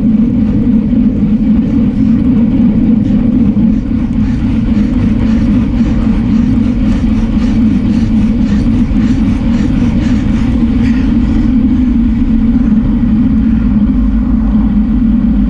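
Wind rushing over an action camera's microphone on a road bicycle at sprint speed, about 35 mph, mixed with tyre noise on the asphalt: a loud, steady low rush.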